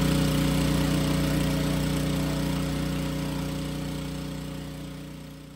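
Gas pressure washer's small engine running steadily, with a hiss of water spray from the surface cleaner, gradually fading out.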